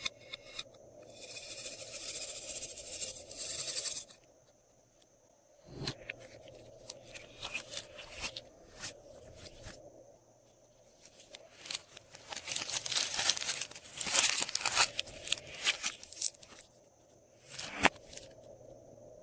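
Plastic piping bags full of slime being handled and squeezed: crinkling plastic in two long stretches, with sticky clicks and pops in between and a sharp snap near the end.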